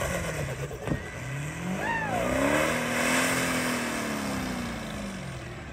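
Diesel Ford Super Duty pickup's engine revving hard during a burnout. The pitch climbs to a peak about three seconds in, then falls away as it eases off.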